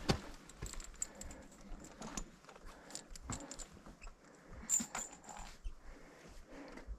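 Footsteps of a walker on a trail, irregular soft steps and scuffs.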